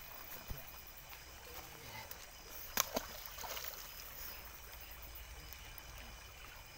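Faint crinkling and rustling of a plastic bag being handled, with one sharp click about three seconds in, over low background noise.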